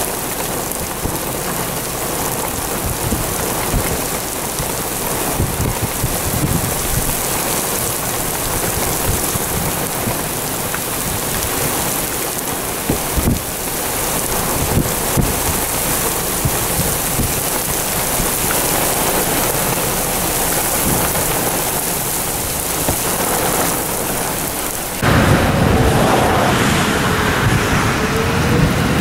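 Wind-driven rain beating on a car during a tornado, a steady rush with scattered knocks of drops striking. About 25 s in it cuts abruptly to a louder, rougher wind noise.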